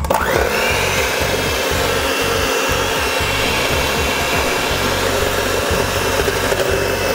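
Electric hand mixer switched on, its motor whine rising quickly as it comes up to speed, then running steadily as the beaters whip cold cream into chantilly in a stainless steel bowl.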